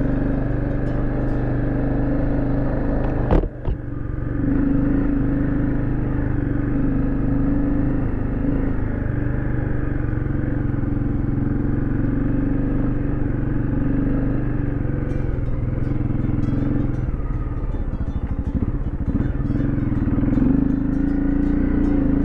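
Dirt bike engine running steadily while riding a dirt trail, with one sharp knock about three and a half seconds in followed by a brief drop in level. The engine eases off for a few seconds past the middle and picks up again near the end, with scattered small clicks over it.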